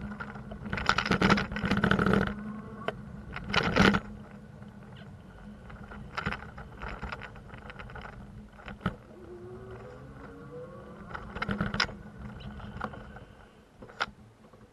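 Street traffic noise with a steady low hum and three loud clattering bursts in the first four seconds. A vehicle engine rises in pitch about ten seconds in, and the sound fades away near the end.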